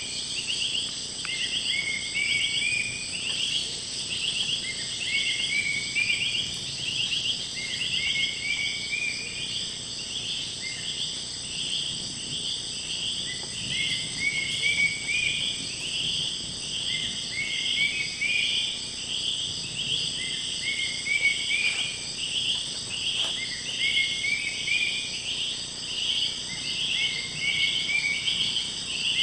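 Amazon rainforest insect chorus: a steady high-pitched drone, with a pulsed chirping call repeating about once a second.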